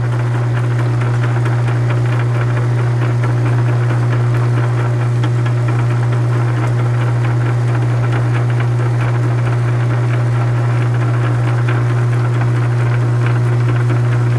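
South Bend 9-inch lathe running steadily in back gear, with a loud, constant gear-train drone and hum. The back gear has two broken teeth rebuilt with braze and filed to shape, and is being run to test the repair.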